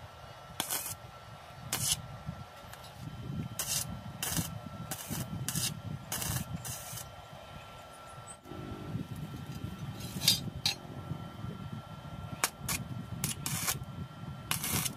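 Wire-feed (MIG) welder striking a series of short tack welds on square steel tubing: about a dozen brief crackling, sizzling arc bursts, with a gap of a few seconds in the middle.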